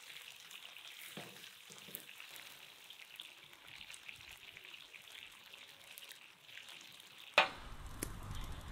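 Raw chicken pieces frying in oil in a pan, a soft steady sizzle with small crackles. Near the end a single sharp knock, then the low rumble and crackle of a wood fire in the stove's firebox.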